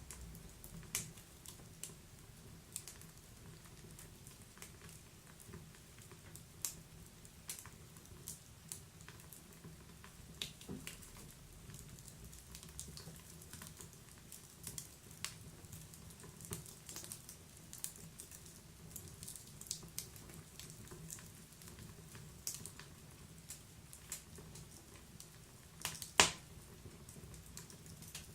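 Wood fire burning in a wood stove: irregular sharp crackles and pops over a faint low steady rumble, with one loud pop near the end.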